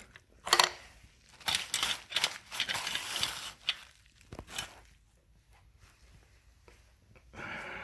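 Irregular rustling and light knocks of things being handled, in scattered bursts for about four seconds, then quiet.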